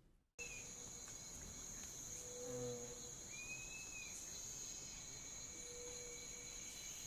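Faint night-time swamp ambience: insects drone steadily on several high pitches. It sets in abruptly just after the start, with a short arching call about three seconds in and a few brief low notes.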